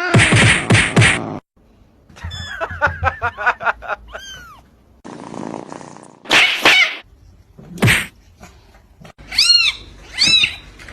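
A cat meowing in several short separate calls, including three short arching meows near the end.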